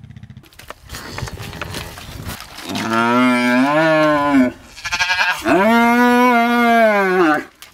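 Newborn calf bawling twice: two long calls, each rising and then falling in pitch, while it is held on a rope. Rustling and small knocks come before the first call.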